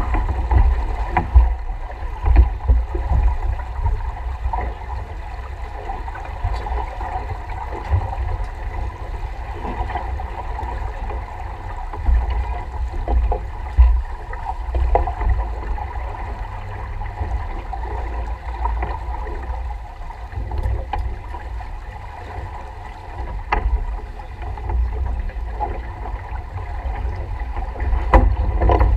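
Wind buffeting the microphone over the rush of water along the hull of a sailboat under sail, with a few brief knocks and clicks from gear on deck.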